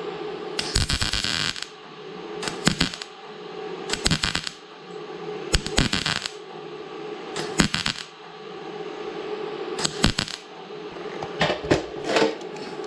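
Vise grips clamped on a welded-up broken bolt being worked back and forth: short bursts of metal clicking and scraping every second or two as the bolt starts to turn in its threads, over a steady hum.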